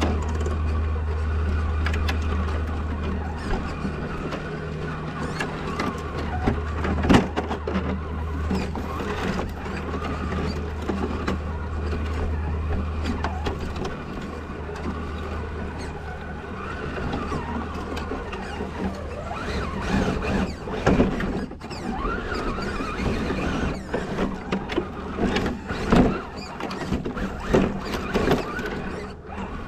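Scale RC crawler's electric motor and geared drivetrain whining, the pitch rising and falling with the throttle, with a low hum for the first half. Sharp knocks and clatters sound as the truck crawls over the trail, loudest about 7, 21 and 26 seconds in.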